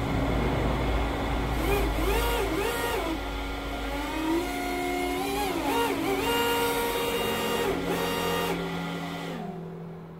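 RC model hovercraft's fans running: a steady whine with a higher note that sweeps up and down again and again as the throttle is worked. Near the end the whine drops in pitch and fades out as the craft powers down.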